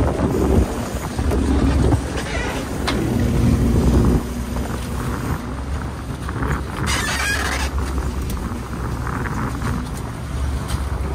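A small fishing boat's engine running steadily at sea, with water and wind noise over the deck. A few sharp knocks of gear and a brief hiss about seven seconds in.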